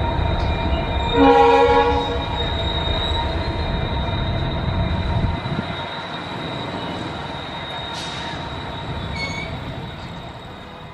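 EMD WDG4D diesel locomotives running light in tandem, their engines giving a steady heavy rumble, with one short horn blast about a second in. The rumble drops off sharply about five seconds in and then fades out toward the end.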